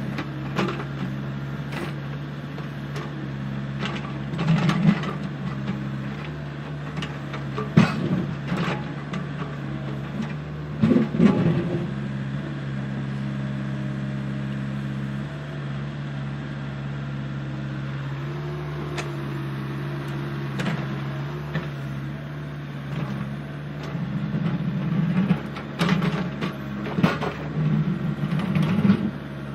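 Excavator engine running steadily with a low hum, with clanks and knocks from its working parts now and then, thickest near the end.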